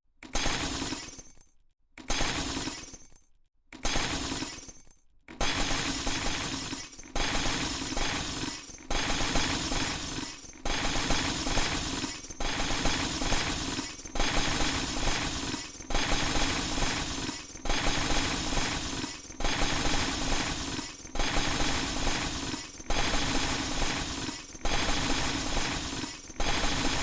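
A glass-shattering sound effect played over and over, a new crash starting about every second and a half. The first few crashes are separated by brief silences. From about five seconds in, the repeats overlap into unbroken, stacked shattering.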